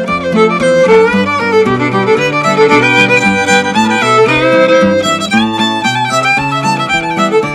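Old-time fiddle tune played on fiddle with acoustic guitar backing: a quick, busy fiddle melody over steady strummed guitar chords.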